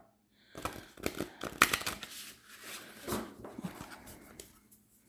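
A deck of new, oversized oracle cards being riffle-shuffled by hand: a quick run of crisp card flicks in the first half, then softer sliding and tapping as the cards are squared up.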